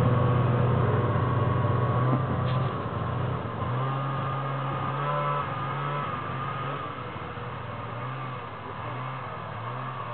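Ski-Doo Legend snowmobile running as it drives away, its steady engine note fading gradually with a few brief dips and shifts in pitch as the throttle changes.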